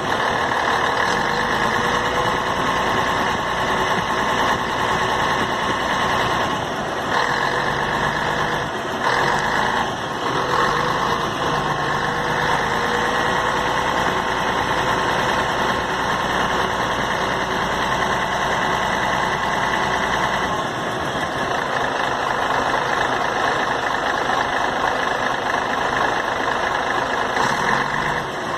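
Scania K113 CL coach's diesel engine running at idle, a steady engine note that shifts briefly about 7 and 9 seconds in and changes again about 20 seconds in.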